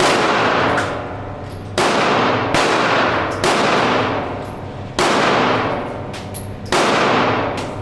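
Six gunshots at irregular intervals, each a sharp crack followed by a long echoing decay of about a second and a half, as in an indoor shooting range.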